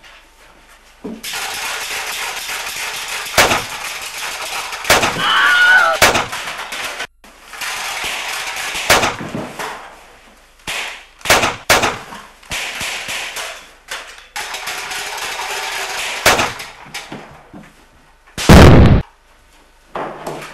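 Gunfire sound effects: about nine sharp shots scattered through, between stretches of steady hiss. The loudest and deepest shot comes near the end.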